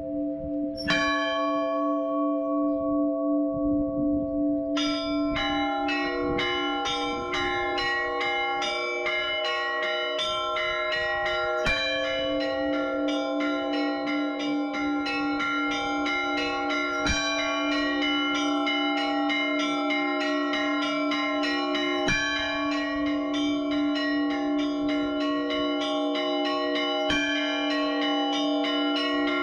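Russian Orthodox church bells rung by hand from ropes in the belfry. One bell strikes about a second in. From about five seconds in, several small bells ring in a fast, continuous peal, with a heavier stroke roughly every five seconds.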